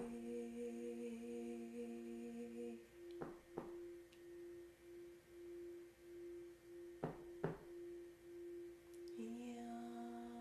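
Sustained ringing tones of sound-healing instruments. One steady note holds throughout, while a lower note and its overtones drop out about a third of the way in and come back near the end. A soft double strike repeats about every four seconds.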